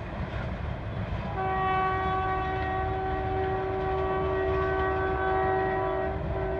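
Hitachi diesel locomotive's horn sounding one long steady blast, starting about a second and a half in, over the low rumble of the train running away down the line.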